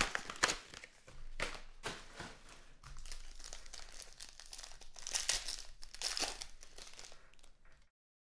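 Foil wrapper of a football card pack crinkling and tearing as it is opened by hand, in irregular crackles. The sound cuts off abruptly near the end.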